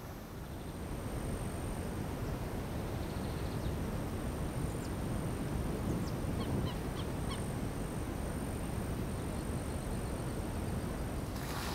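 Outdoor pond-side ambience: a steady low rumbling noise on the microphone and a thin, steady high-pitched whine, with a few short bird chirps a little past the middle. A burst of rustling starts just before the end.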